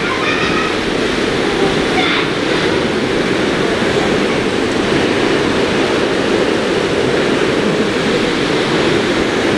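Heavy rain pouring down steadily on a tent roof.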